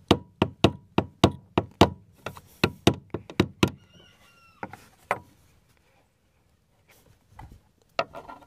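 Short hammer tapping a screwdriver set against the fuel pump's locking ring, knocking it round counterclockwise to loosen it: rapid, even strikes about four a second for more than three seconds. Then a brief squeak and two last knocks, followed by a few soft handling noises.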